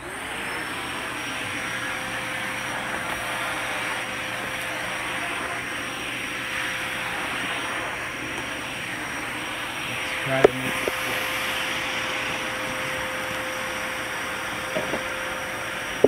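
2007 Hoover Constellation canister vacuum, with its fairly cheap Chinese-made motor, switched on and winding up within a moment, then running steadily: a constant whine over a loud rush of air. A sharp knock comes about ten seconds in, and a couple of lighter knocks come near the end.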